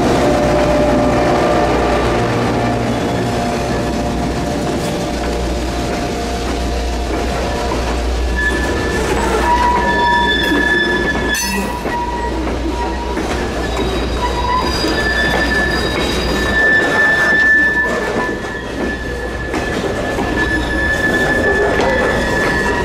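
Diesel freight train passing close by. At first the deep rumble of a passing diesel locomotive's engine is heard; from about eight seconds in the freight cars roll past with clicks over the rail joints and a steady, high wheel squeal.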